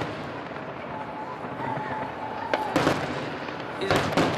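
Aerial fireworks going off: a single sharp bang nearly three seconds in, then a quick cluster of cracking reports just before the end, over a steady background rumble.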